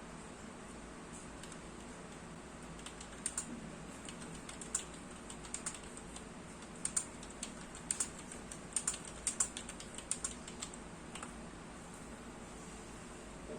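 Keys of a Logitech K375s membrane keyboard being typed on: irregular soft clicks in quick clusters from about three seconds in to about eleven seconds, over a faint steady hiss.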